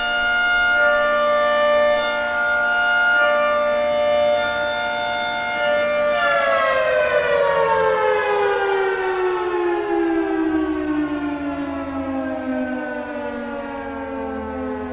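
Federal Signal 3T22A three-tone rotating warning siren sounding its Hi-Lo signal, a chord alternating between two pitches. About six seconds in the signal ends and the siren winds down, its chord falling slowly in pitch.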